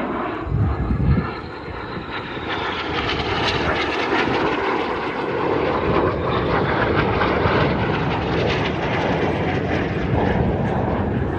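Jet engine roar of Red Arrows BAE Hawk T1 jets flying a display pass, a high whine falling in pitch over the first two seconds, then the roar building and holding loud. A couple of low thumps sound about a second in.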